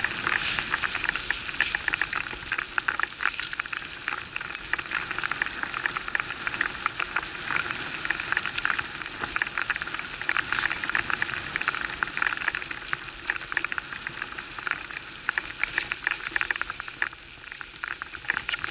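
Skis sliding through snow, a steady crackling hiss with many small clicks, heard through a pole-held action camera.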